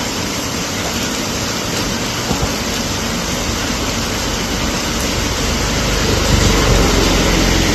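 Heavy rain falling steadily, an even hiss; about six seconds in, a motor vehicle's engine hum comes up beneath it.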